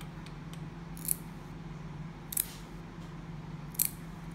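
Pet nail clippers snipping a cat's claws: three sharp clips, roughly a second and a half apart, over a steady low hum.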